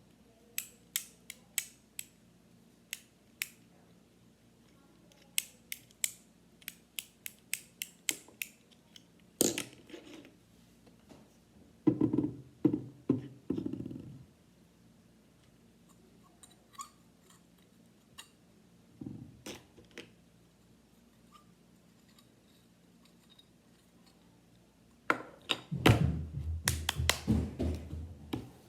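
Fidget toys being clicked and handled: a run of sharp separate clicks, then louder bouts of clattering and rubbing about twelve seconds in and again near the end.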